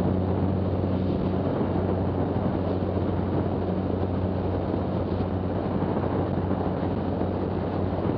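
Zenith STOL CH 750's Jabiru six-cylinder air-cooled, direct-drive engine and propeller running steadily at takeoff power just after lift-off. It is an even drone with a constant low hum under a rush of noise.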